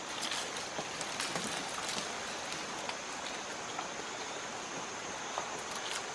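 A steady, even hiss of falling water like rain, with scattered light ticks and drips.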